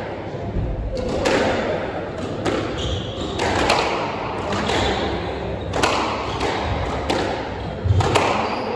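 Squash rally: a run of sharp hits as the ball is struck by the rackets and rebounds off the court walls, a hit every half second to a second, each echoing briefly in the court.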